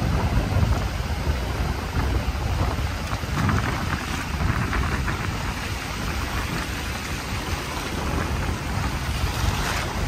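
Ocean surf washing in, with wind rumbling on the microphone, and short splashes of shallow water about three to five seconds in.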